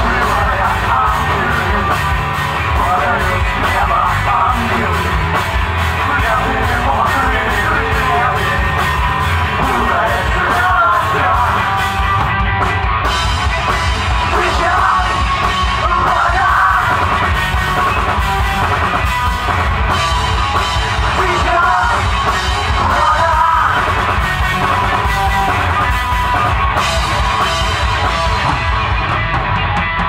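Live alternative rock band playing loudly, with electric guitar, bass guitar and drum kit. A vocalist sings into a handheld microphone over them.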